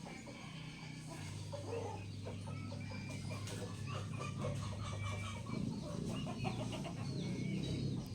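Short chirping calls of a caged kutilang (sooty-headed bulbul), over domestic chickens clucking and a low steady hum that grows fuller about two-thirds of the way through.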